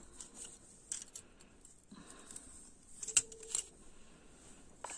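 A few light clicks and clinks of metal dress and shoe clips being handled and set down on a cloth, with two sharper clicks a little after the middle.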